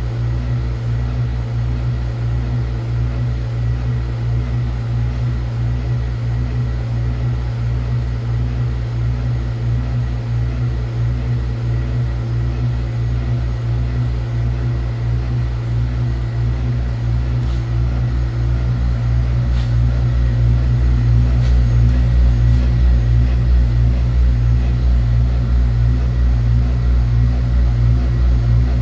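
Quilt and blanket washing machine running: a steady low mechanical hum with a fast, even pulsing, growing a little louder about two-thirds of the way through.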